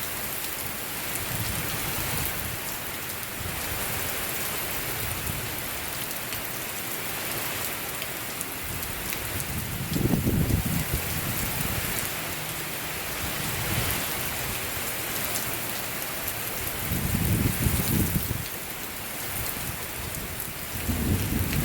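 Heavy thunderstorm rain falling steadily, with two louder low rumbles, about halfway through and again near the end.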